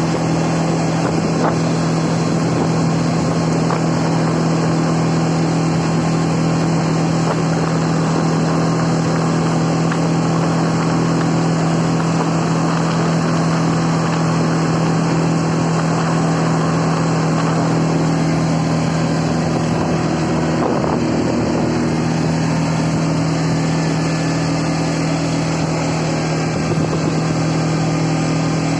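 CFMoto 520L ATV's single-cylinder engine running at a steady pace while driving, a constant drone whose pitch shifts slightly about twenty seconds in.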